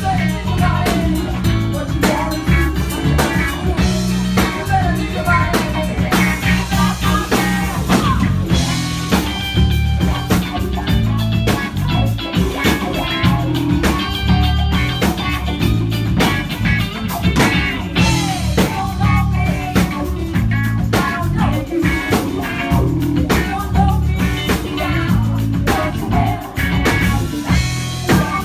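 Live rock band playing a mid-tempo song: drum kit, bass guitar and two electric guitars, loud and steady throughout.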